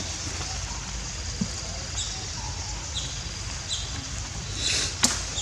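Forest ambience: a short, high, falling chirp repeating about once a second over a low background rumble, with a rustle and a sharp click near the end.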